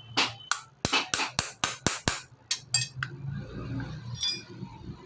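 A quick series of about a dozen sharp metal taps over three seconds as the motorcycle brake pin is tapped home until it locks. The taps are followed by low handling rattle and a brief metallic jingle.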